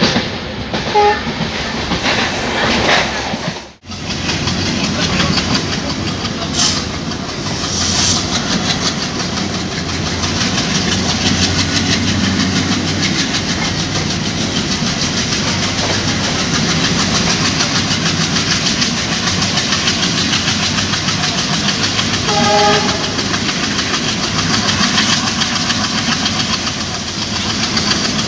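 Train running at speed, with wheel and rail noise, wind, and the low hum of the WDG3A's ALCo 16-cylinder diesel working hard as it accelerates. Short horn toots sound about a second in and again about 22 seconds in.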